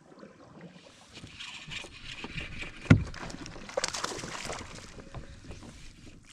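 Water lapping and splashing against a plastic kayak hull, with small clicks and knocks from gear on the boat. There is one sharp, loud knock on the hull about three seconds in.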